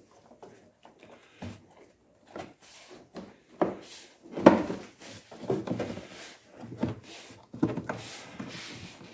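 Hard plastic trim of an Audi A4 B6's water-box cover being handled and pressed back into place: irregular knocks, clunks and scraping, the loudest clunk about four and a half seconds in.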